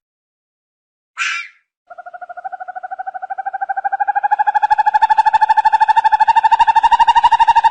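An animal's call: a short rasping note, then a long, rapid trill that grows louder and rises slightly in pitch.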